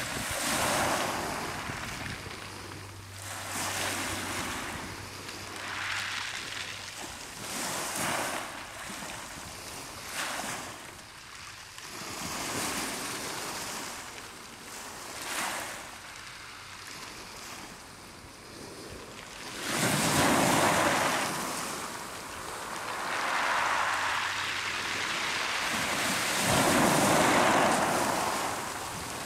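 Small waves breaking and washing up over a shingle beach of rounded pebbles, each wash swelling and fading every few seconds. Bigger, louder surges come about twenty seconds in and again near the end.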